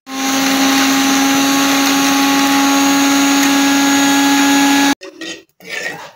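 Electric mixer-grinder (mixie) running at full speed, grinding a dry-roasted spice masala in its steel jar: a loud, steady whine that cuts off suddenly about five seconds in.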